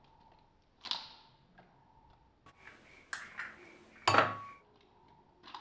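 Eggs being cracked into a bowl: a soft splash as egg drops in about a second in, a light tap, then a sharp crack of an eggshell struck on the bowl's rim about four seconds in.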